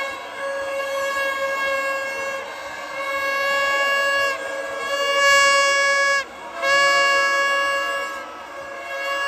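Horns sounding in a run of long, steady blasts of about two seconds each, with short breaks between them; the pitch sags slightly as each blast cuts off.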